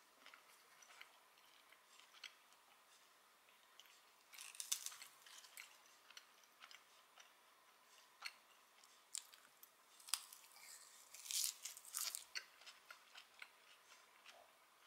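Close-miked chewing of a mouthful of fresh spinach salad, the leaves crunching. Small clicks of a fork touch the plate. The crunchiest chewing comes about four seconds in and again around eleven seconds.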